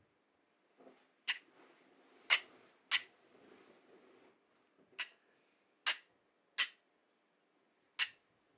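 A parrot coughing: seven short, sharp coughs at uneven intervals.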